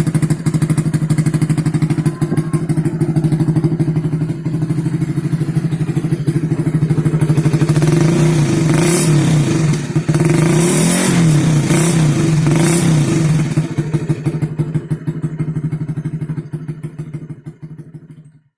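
Honda CB150R single-cylinder engine idling through a local copy of a Suzuki Satria FU exhaust, with a steady exhaust pulse. Around the middle it is given a few light throttle blips that rise and fall, then it settles back and fades out near the end.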